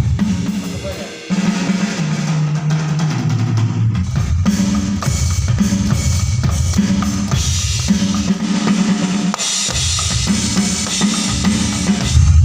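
Drum kit playing a steady beat of kick, snare and cymbals over a song with a bass line.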